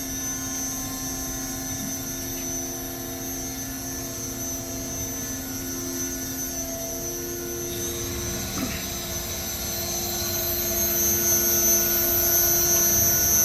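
Hyd-Mech H-230A horizontal bandsaw running: a steady hum made of several held tones, including a high whine, growing louder about ten seconds in.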